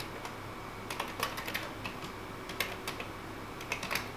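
Keys of a Commodore 64C keyboard being typed, an irregular run of clicks starting about a second in.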